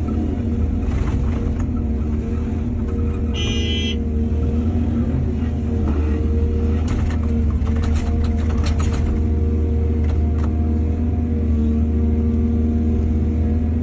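Excavator diesel engine running steadily, with a short high-pitched tone about three and a half seconds in and a run of knocks and rattles around the middle.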